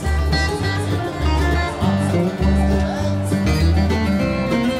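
Background music: plucked acoustic guitar in a country or bluegrass style over a bass line that moves every half second or so.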